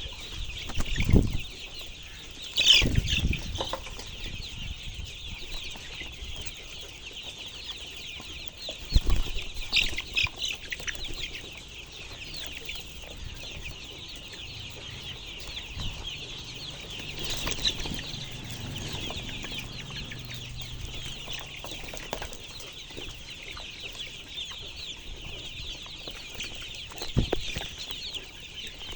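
A flock of chickens calling in a dense, continuous chatter, with a few low thumps here and there.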